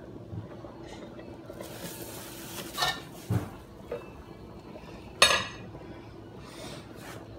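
Metal pot lids clanking against the cooking pots several times, the loudest ring about five seconds in, with a rustle of the plastic sheet laid under the lid.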